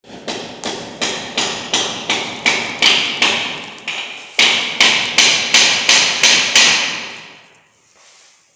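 Rapid, evenly spaced sharp knocks like hammer blows, about three a second, each with a short ring. They pause briefly a little past the midpoint, come back louder, then die away near the end.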